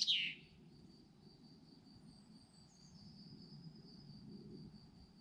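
A songbird's loud phrase ends about half a second in. After it a steady, high, thin insect trill carries on over a faint low rumble of the wood's background.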